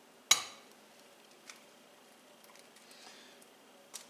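An egg rapped once against a hard edge: a sharp knock with a short ringing tail about a third of a second in. Faint small clicks of the shell follow near the end as it is opened over the skillet.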